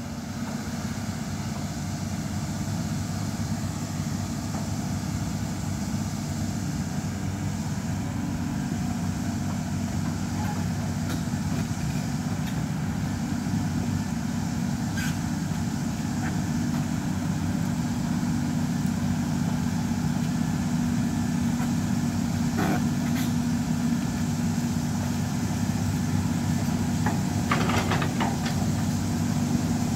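Caterpillar hydraulic excavator's diesel engine running steadily as it digs and lifts buckets of earth, gradually getting louder as the machine comes closer. A few sharp knocks stand out over the engine near the middle and near the end.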